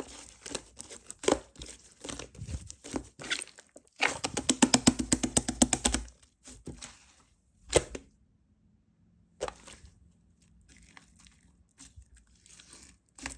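Slime being handled, squished and pulled, with sticky crackling and popping. There is a dense run of rapid pops about four to six seconds in, then quieter, sparser crackles.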